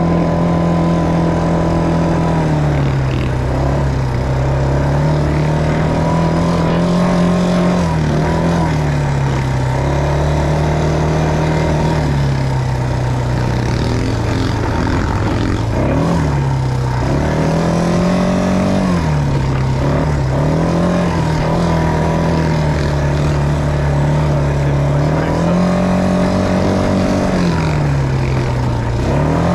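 ATV engine running under way, heard from the rider's seat, its note falling and rising again and again as the throttle is eased off and opened on a dirt trail.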